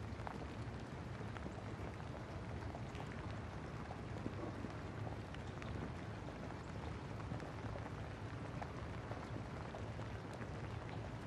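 Steady rain falling, with many small drop ticks over a low, steady rumble.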